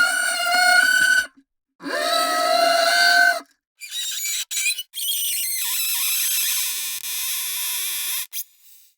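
A cello bow drawn across hard materials, heard as four separate bowed sounds cut apart by brief silences. The first two are steady pitched tones with many overtones. The last two are higher and hissier.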